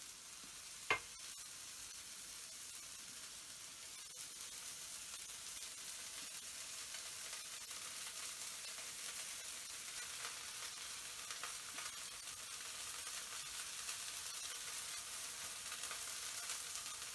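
Bánh xèo batter sizzling in a hot nonstick pan as oil is added around the crêpe's edge: a steady high hiss that grows slightly louder. A single sharp click about a second in.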